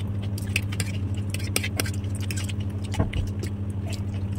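Metal fork clicking and scraping on ceramic plates during eating, with a louder knock about three seconds in, over a steady low hum.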